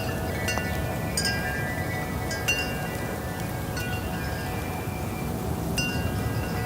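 Wind chimes ringing in the breeze: irregular strikes, several in a cluster about half a second to a second and a half in, more around two and a half seconds and again near the end, each leaving bright tones ringing on. A steady low rush of wind runs underneath.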